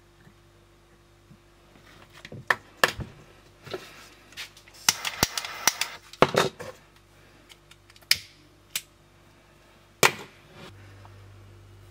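A string of sharp clicks and knocks, with a short hiss a little before the middle, as a small gas camping lantern is handled.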